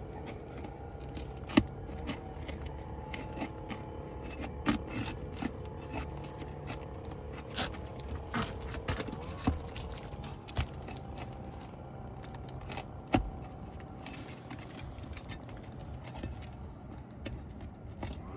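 Scraping and sharp clicks of a pry tool being worked under sealed roof shingles, the sealed shingles pulling apart against heavy resistance. A steady low hum runs underneath.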